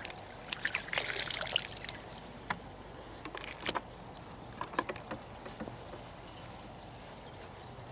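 Water splashing and trickling as a carp is released from a landing net back into the pond, strongest in the first two seconds, followed by a few scattered light clicks and knocks.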